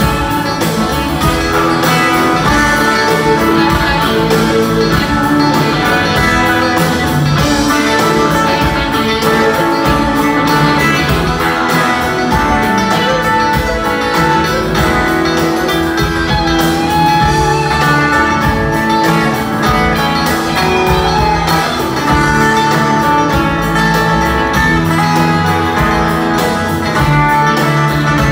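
Live band playing an instrumental passage, led by guitars over keyboards, drums and upright bass.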